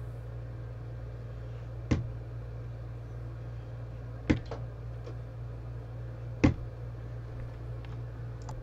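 Steady low hum of room tone, with three short sharp clicks about two seconds apart.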